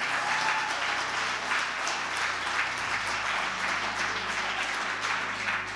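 A congregation clapping and applauding steadily.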